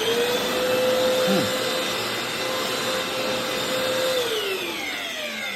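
Hoover FloorMate hard floor cleaner's motor starting up with a steady whine, then switched off about four seconds in and winding down in falling pitch. Its owner judges the motor doesn't sound too good.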